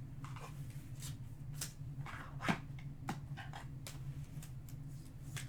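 Trading cards and foil pack wrappers being handled: scattered soft clicks and rustles over a steady low hum.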